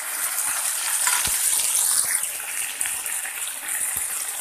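Hot oil in a kadai sizzling with a steady hiss as freshly added cumin-ginger paste fries with chopped coconut and whole spices for a lentil tempering, stirred with a spatula that knocks softly against the pan about a second in and near the end.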